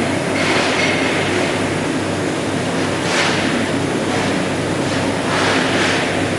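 CNC plasma pipe-cutting machine cutting holes in square steel tube: a steady machine hum under a hiss that swells up about every two to three seconds as the plasma torch fires.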